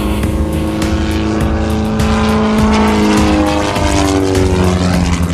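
Aerobatic biplane's piston engine and propeller, a loud droning whose pitch falls in the second half as the plane passes and turns through a manoeuvre.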